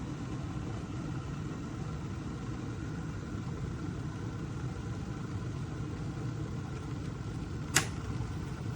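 Northmas 1200 W gooseneck electric kettle heating water with a steady low rumble, and a single sharp click near the end, the click of its auto shut-off when the water is done.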